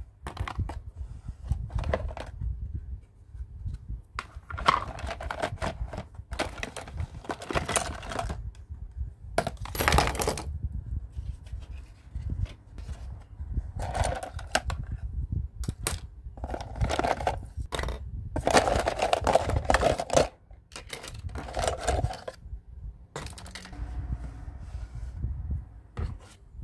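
Plastic toy doctor-kit pieces clattering and rattling as they are lifted out of a hard plastic carry case, in irregular bursts of clicks, knocks and scrapes.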